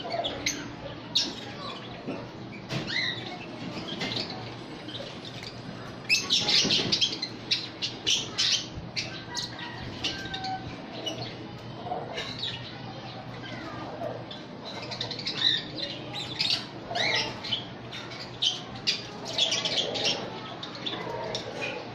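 A flock of small parrots, lovebirds and a ring-necked parakeet among them, chirping and squawking in short sharp calls, thickest about six seconds in and again in the last third, with occasional wing flaps.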